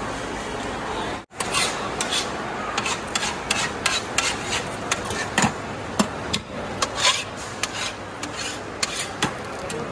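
Plastic bag and paper crinkling and rustling as a vendor handles parathas, a run of irregular sharp crackles and rasps. The sound drops out for a moment about a second in.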